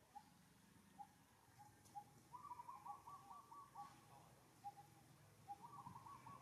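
Faint bird calls in the forest: short whistled notes repeating about once a second, broken twice by a quick trilled phrase.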